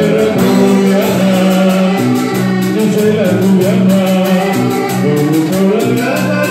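Latin American band music with a singer's voice gliding over steady bass notes, and quick, even percussion ticks.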